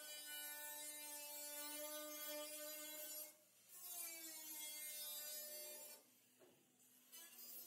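Corded electric angle grinder with a cut-off disc cutting through the sheet-steel side of a truck bed: a steady whine that drops out a little over three seconds in, spins back up with a rising pitch, and winds down about six seconds in.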